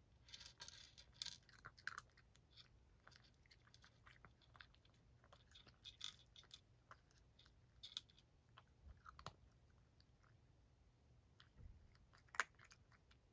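A cat crunching dry kibble: faint, irregular crunches and cracks as it chews, thickest in the first couple of seconds and again around six seconds in, with one sharper crack near the end.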